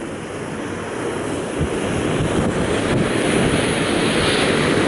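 Storm waves surging and crashing with strong wind buffeting the microphone; the rush grows louder over the first few seconds.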